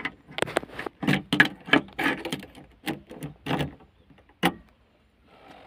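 Knocks and clatter of handling in an excavator cab, with a sharp click of the ignition key about four and a half seconds in. Near the end the engine's starter begins to crank.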